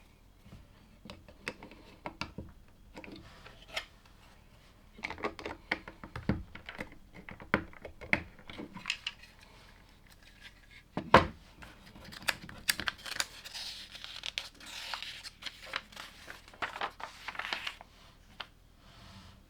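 LEGO pieces being handled and pressed together: scattered small plastic clicks and taps, the sharpest about eleven seconds in, with a crinkling rustle in the second half.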